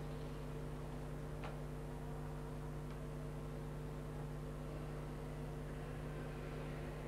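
Ice rink room tone: a steady low electrical hum, with a faint click about one and a half seconds in and another near three seconds.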